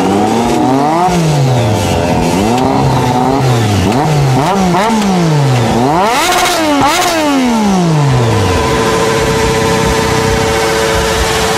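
Motorcycle engines being revved hard over and over, the pitch climbing and falling in quick blips, with crossing pitches from more than one bike. Near the end an engine holds steady revs.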